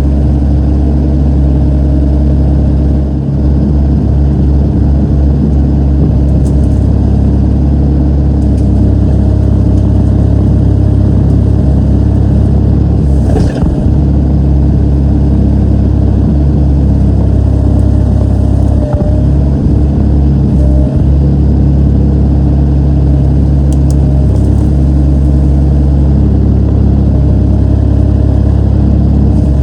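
Excavator's diesel engine running steadily, a loud constant drone, with one brief knock about halfway through.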